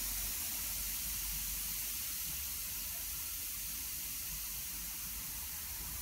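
Oxygen from an Air Products Integra cylinder's built-in regulator hissing steadily as it escapes through the unlit oxy-acetylene torch. The low-pressure flow is being judged by ear from this hiss because the regulator's gauge is too coarse to read a few psi.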